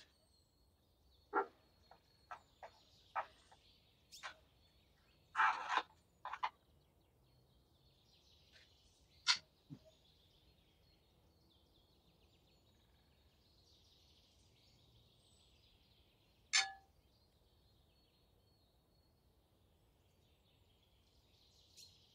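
Short sharp clicks and clinks of metal utensils against a baking tray and a ceramic plate, several close together and then a single one after a long gap, over faint high chirping in the background.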